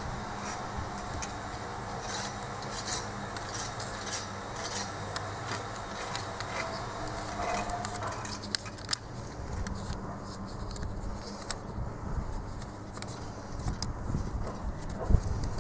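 LGB garden-railway track section handled by hand, with scattered clicks of its brass rails and plastic sleepers.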